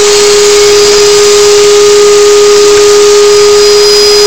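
Table-mounted router motor running at steady speed: a loud, unchanging whine over a hiss.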